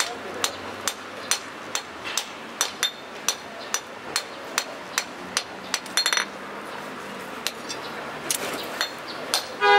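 Hand hammer striking red-hot steel on a steel post anvil, forging an axe blank from an old drive shaft: sharp blows about two a second. About six seconds in comes a quick rattle of ringing taps, and near the end a louder strike that rings out.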